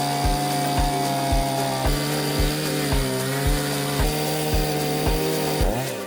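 Small gas chainsaw running at high revs as it cuts into wood, its pitch sagging under load about halfway through and falling away near the end. Under it runs background music with a steady kick-drum beat.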